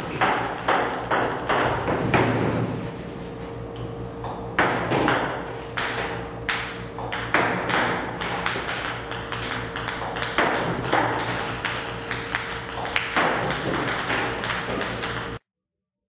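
Table tennis balls clicking as they bounce on the table and strike the net, fed by a ball-launching robot, about two sharp clicks a second over a steady hum. All sound cuts off abruptly near the end.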